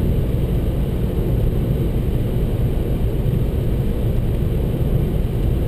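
Renaultsport Mégane's turbocharged four-cylinder engine, heard from inside the cabin, running at a steady pace along with road noise. The sound holds steady, with no lift or gear change.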